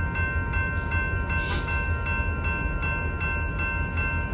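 Railroad crossing bell ringing in an even rhythm, about two and a half strikes a second, over a steady low rumble. A brief hiss comes about a second and a half in.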